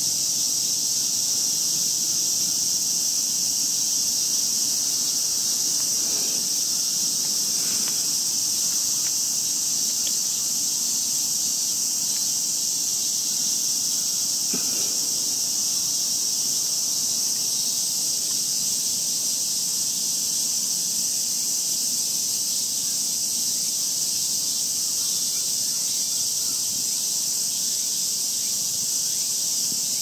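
Dense insect chorus: a steady, unbroken shrill buzzing.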